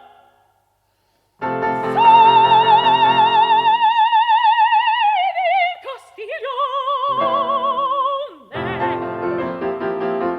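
Soprano and piano in a German art song: after a short pause, the soprano holds one long high note with wide vibrato that slides down at its end, sings a shorter phrase, and then the piano carries on alone in a quick, busy postlude.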